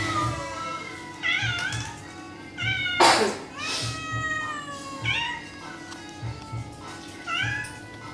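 Grey kitten in a wire cage meowing repeatedly: about four wavering meows a couple of seconds apart, with a short, loud noisy burst about three seconds in.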